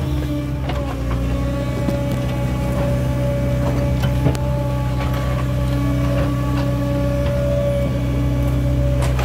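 JCB digger's diesel engine running steadily at a constant speed, with a sharp knock about four seconds in.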